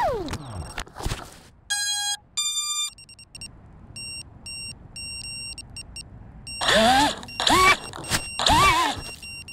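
A five-inch FPV quad's brushless motors whine down to a stop as the flight controller reboots. The Hobbywing BLHeli32 ESCs then play two short start-up tones through the motors, the second higher than the first, followed by a run of short electronic beeps. About seven seconds in, the motors spin up again in three short revving bursts, pitch rising and falling.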